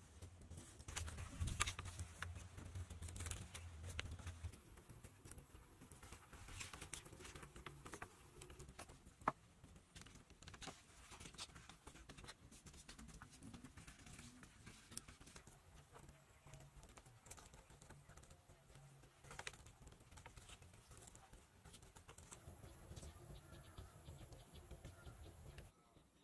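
Faint, scattered clicks and knocks of bamboo poles being handled and fitted together on a pole frame, with one sharper knock about nine seconds in. A low rumble sits under the first few seconds.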